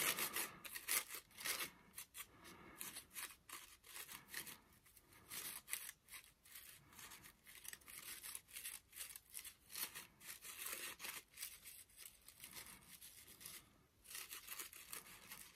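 Faint crinkling and rustling of paper flower petals being handled and shaped by hand, in many short irregular crackles.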